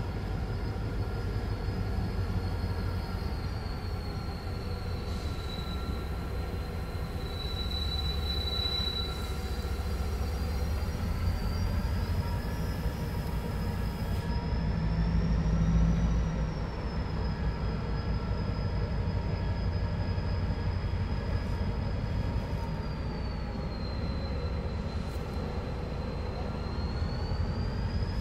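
A train running through with a steady low rumble and a high wheel squeal that slowly wavers up and down in pitch throughout; the rumble swells loudest about halfway through.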